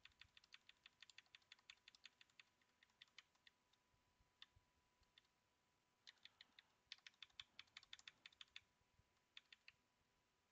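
Faint, rapid taps on a computer keyboard: repeated key presses scrolling down through a text file. The taps come in two quick runs with a sparser stretch of about two seconds between them.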